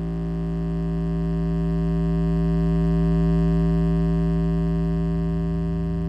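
Synthesized electronic drone of steady, layered tones built from particle mean lifetimes turned into pitch (frequency = 1/time), looped forward and in reverse. A strong low tone dominates, with a fast flutter underneath, swelling to its loudest about halfway through and then easing off a little.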